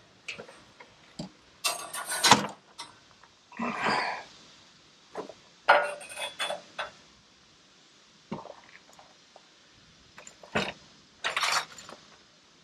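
Steel sawmill band blade being uncoiled and handled: irregular metallic clinks, rattles and scrapes as the long steel band flexes and knocks, the loudest about two seconds in.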